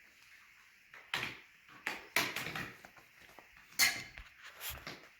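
Plastic parts of a DIY dinosaur assembly kit knocking and clattering as they are handled and fitted together: a string of irregular knocks beginning about a second in, the loudest near the end.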